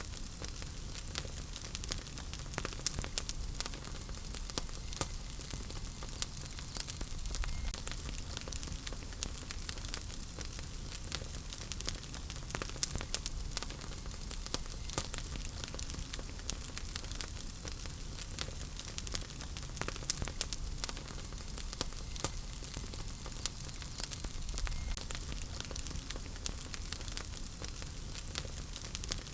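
Wood fire burning in a fireplace: steady crackling, with many small sharp pops at irregular moments over a soft hiss and a low rumble.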